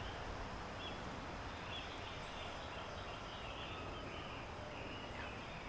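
Steady wind noise with faint, scattered high chirps from small birds.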